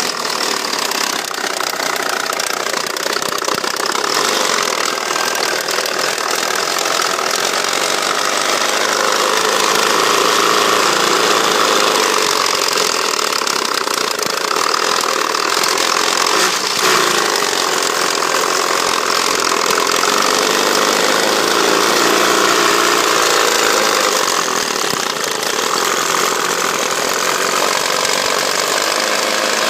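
Mitsubishi Lancer Evolution's 4G63 turbocharged inline-four running steadily with a knocking sound, a little louder through the middle. The engine runs smoothly above about 2000 rpm but sputters and dies at idle, and the rocker arms appear fine, so the knock's cause is unknown.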